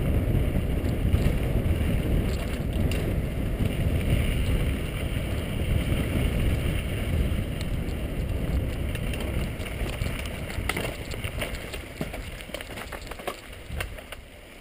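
Wind buffeting an action camera's microphone while a mountain bike rolls fast on a dirt singletrack, with tyre and trail noise. The rumble eases off after about ten seconds, and scattered clicks and rattles from the bike come through near the end.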